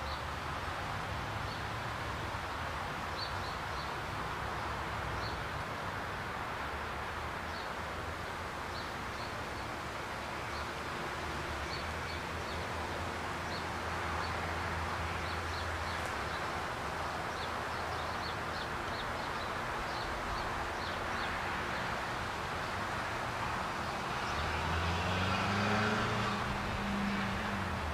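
Steady road traffic from nearby streets with short, high bird chirps scattered through. Near the end a vehicle passes closer, its engine note rising and then falling.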